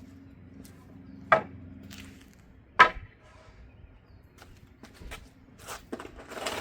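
Wooden boards being set in place on a tote storage frame: two sharp wood-on-wood knocks about a second and a half apart, then softer knocking and handling noise near the end.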